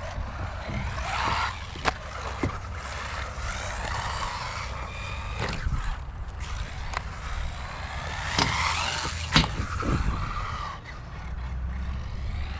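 Small electric RC buggy motor whining as it revs up and down over and over, with several sharp knocks and clatters as the buggy lands and hits the concrete.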